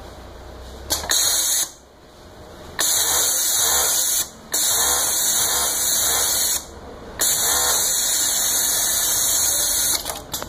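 Zoje ZJ-C2521 electronic cylinder-bed coverstitch machine sewing a T-shirt sleeve hem, running in four spells: a short burst about a second in, then three longer runs of two to three seconds each, with brief stops between as the fabric is repositioned.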